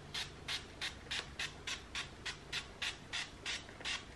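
Finger-pump spray bottle of L'Oréal Elvive Hyaluron Plump leave-in spray misting onto curly hair in quick repeated pumps, about three or four short sprays a second.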